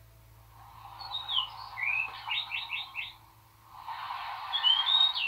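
Recorded birdsong sound effect playing back from the computer at lowered volume: a few chirps, then a quick run of about five notes, and more chirps near the end, over a soft steady background hush.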